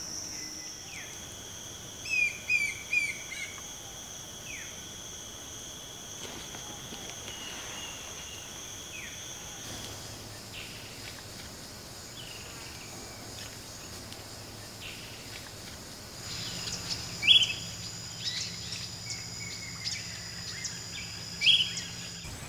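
Tropical forest insects buzzing in steady high trills, with birds calling over them. A quick series of short falling chirps comes about two seconds in, and two loud, sharp single calls come later, the first of them the loudest sound.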